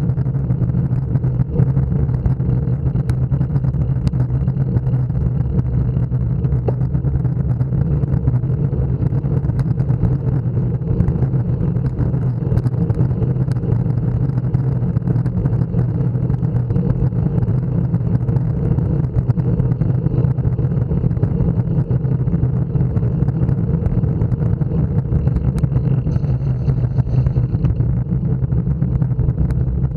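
Steady low rumble of wind buffeting and road vibration on a bicycle-mounted action camera while riding.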